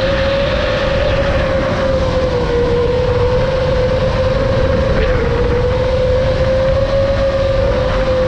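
Electric motors of an iFlight Nazgul5 FPV quadcopter running on a 6S battery, a steady whine whose pitch drifts only slightly, over wind rumble on the onboard GoPro's microphone.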